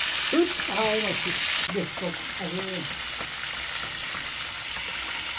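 Food frying in hot oil, a dense sizzling hiss that drops off abruptly a little under two seconds in, with a person's voice talking over it during the first three seconds.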